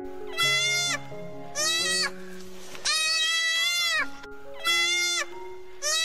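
An animal bleating five times, about a second apart, each call held on one steady pitch and the middle one the longest, over soft background music with held notes.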